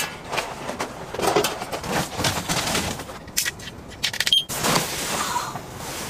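Irregular rustling and crinkling of nylon and plastic with many short cracks, as a person steps in socks across a plastic groundsheet and climbs onto a camp cot with a down sleeping bag; one sharp snap about four seconds in.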